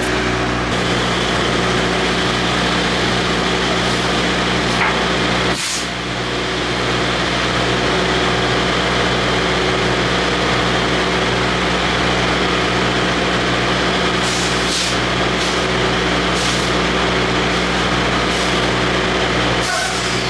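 Diesel engine idling steadily, with a few short clicks over it.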